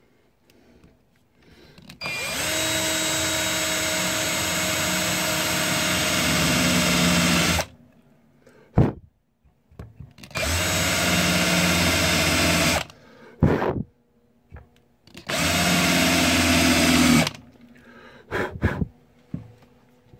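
Electric drill spinning a 1/2-inch high-speed-steel countersink bit into a wooden board, cutting the recess for a screw head. It runs in three bursts: a long one of about five seconds, then two shorter ones of two to three seconds, each followed by a sharp click.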